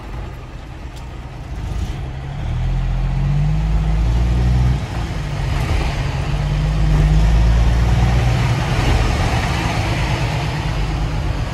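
Heavy diesel truck engine heard from inside the cab, pulling away from a stop: it revs up, dips suddenly at a gear change about five seconds in, then revs up again and holds steady.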